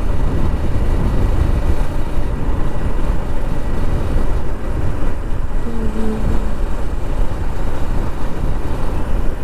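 Heavy wind blast buffeting the microphone on a moving motorcycle, a loud, steady low rumble with the bike's engine and road noise underneath. A brief steady tone sounds about six seconds in.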